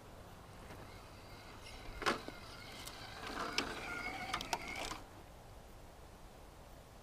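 Axial SCX10 II Deadbolt RC crawler's electric motor and gears whining, the pitch shifting a little, from about two seconds in to about five seconds in. Several sharp clicks or knocks sound over it, the loudest near the start of the whine.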